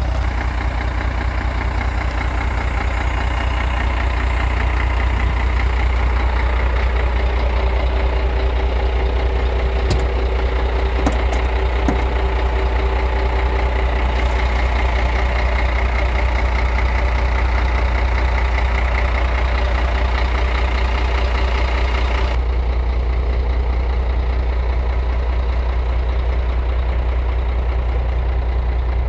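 Scania 124L 400 truck's straight-six diesel engine idling steadily with a deep, even drone. A few faint clicks come around the middle, and the higher hiss drops away about two-thirds of the way through.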